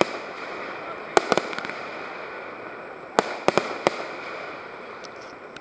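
Fireworks going off: a quick cluster of sharp bangs about a second in, then four more over the next second or so from about three seconds in, over a steady hiss.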